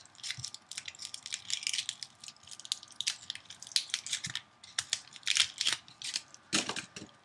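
Aluminum foil being peeled off a wire armature, crinkling and crackling in quick irregular bursts, with a louder crumple near the end.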